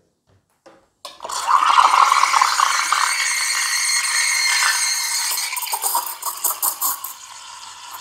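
Gaggia Classic espresso machine's steam wand opening about a second in and steaming milk in a stainless jug: a loud steady hiss that eases and breaks into irregular crackling over the last couple of seconds.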